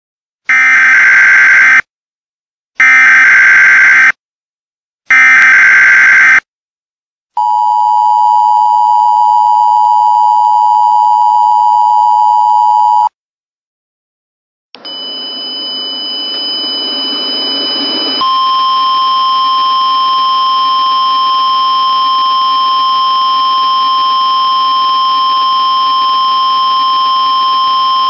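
Emergency Alert System header: three short bursts of warbling SAME data tones, then the two-tone EAS attention signal held steady for about five and a half seconds. After a short silence, from about 15 seconds in, a steady hissing drone with high steady tones begins, and a lower steady tone joins about 18 seconds in.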